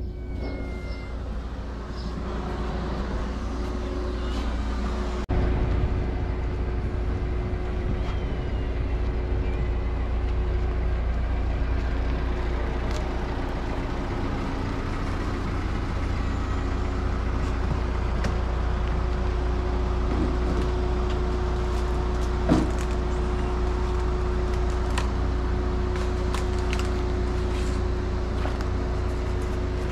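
Steady low rumble with a constant hum, and scattered faint clicks with one sharper knock about two-thirds of the way through.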